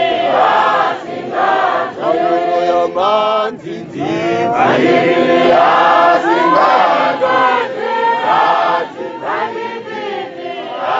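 A church congregation singing a hymn together, many voices in chorus with phrases held and then breaking off briefly.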